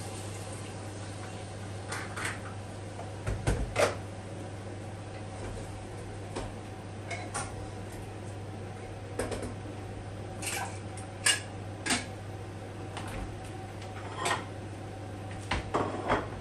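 Pots, pans and utensils clinking and knocking on a gas hob during cooking: about a dozen sharp, scattered clatters over a steady low hum.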